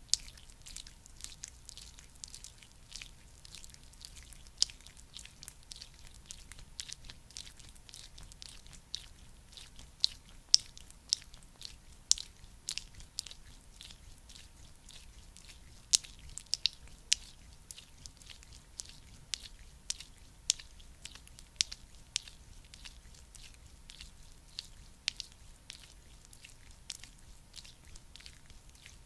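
Close-miked sticky, wet crackling from a thick skincare product being worked by hand: a dense run of small sharp clicks, with occasional louder snaps.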